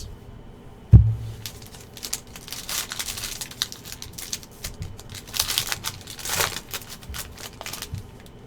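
Trading card packaging being handled: a single thump about a second in, then crinkling, tearing and clicking of cardboard and foil wrapper as the next pack is opened.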